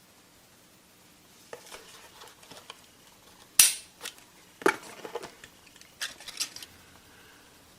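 Sharp metal clicks and clacks from a Smith & Wesson M&P40 pistol being handled, the loudest about three and a half seconds in and another about a second later, with lighter clicks around them.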